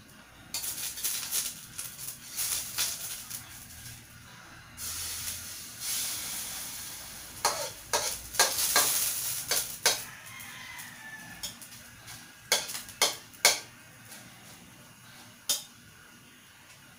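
Pancake batter sizzling in hot oil in a wok, with a metal spatula scraping and tapping against the wok in clusters of sharp clicks through the middle and later part.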